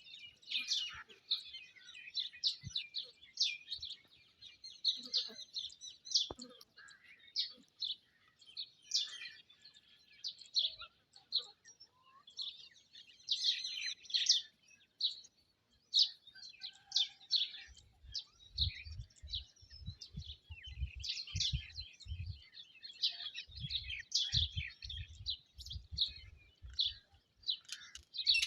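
Birds chirping without pause in many short, high calls. About two-thirds of the way in, two runs of quick low thumps, several a second, come and go.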